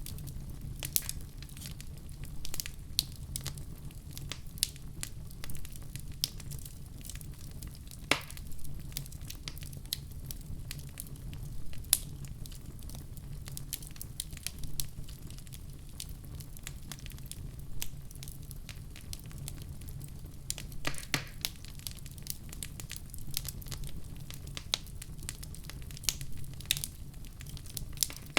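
Wood fire in a fireplace crackling, with irregular snaps and pops, a few louder than the rest, over a steady low rumble of the flames.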